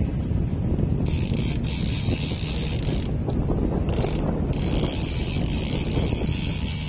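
Fishing reel being cranked to bring in a fish, a fast run of ratchet-like clicks, over a steady low rumble.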